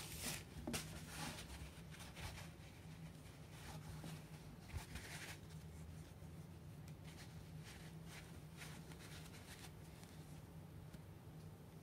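Faint handling sounds of foam shower sponges and their cord loops being turned and tugged in the hands: soft, scattered rustles and light taps, a little busier in the first second, over a low steady room hum.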